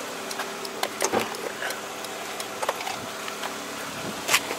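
Honda D17 1.7-litre four-cylinder engine idling steadily, with a few light clicks and knocks scattered over it and a sharper one near the end.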